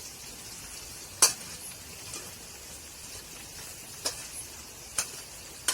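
Squirrel meat sizzling in a cooking pan, with a utensil striking the pan four times; the first strike is the loudest.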